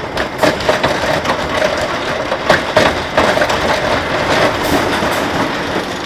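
Wooden roller coaster train rattling and clattering along its track, heard from on board, with frequent sharp knocks from the wheels and structure.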